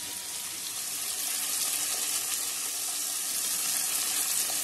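Hilsa fish pieces frying in mustard oil in an aluminium kadai, a steady sizzle, the fish just turned to fry the second side.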